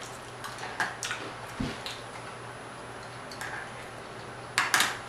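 A person chewing a mouthful of food close to the microphone, with sparse soft mouth clicks and two sharper clicks close together near the end.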